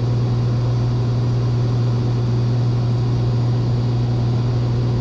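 Cessna 182's engine and propeller droning steadily in level cruise, heard from inside the cabin as a constant low hum.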